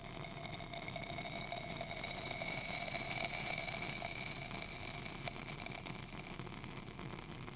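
Bunsen burner flame hissing steadily while it heats a test tube of copper(II) sulfate pentahydrate, growing louder in the middle and easing off toward the end, with faint steady tones under the hiss.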